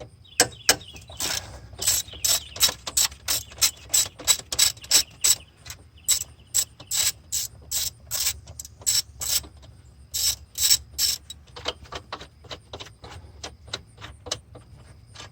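Socket ratchet with an extension clicking steadily, about three clicks a second, as a 13 mm alternator mounting bolt is unscrewed; the clicks turn fainter and sparser about 11 seconds in.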